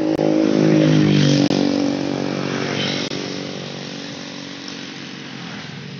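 A motorcycle engine passing close by, its pitch dropping as it goes past about a second in, then fading away.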